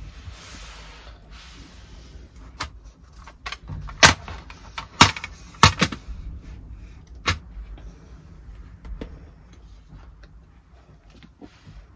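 Handling noises: a short rustle, then a string of sharp clicks and knocks, the loudest bunched about four to six seconds in, then fainter taps.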